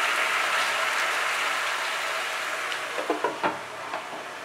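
Mixed vegetables sizzling in hot mustard oil in a frying pan, the sizzle slowly dying down. About three seconds in come a few sharp clinks as a glass lid is set on the pan.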